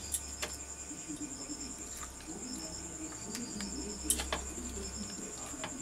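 A metal spoon stirring thick gram-flour and egg batter in a glass bowl: soft wet scraping with a few sharp clinks of the spoon against the glass, the loudest about four seconds in. A steady, high, pulsing trill sits underneath.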